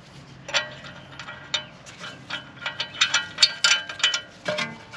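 Irregular metallic clicks and clinks, each ringing briefly, from a bolt being fitted into a screw hole of a brake rotor on the hub. The clicks come faster near the middle of the stretch.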